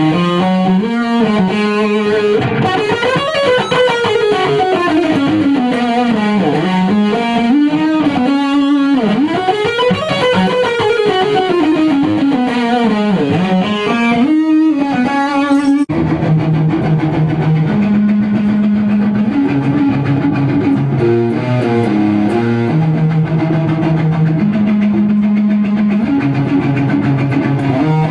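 Electric guitar music with distortion. For the first half the guitar line glides up and down in pitch; about halfway through it cuts abruptly to a riff of stepped, held notes.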